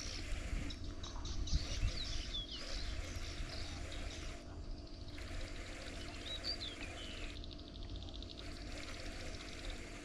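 Birds chirping, scattered short calls that glide up and down in pitch, over a steady low rumble.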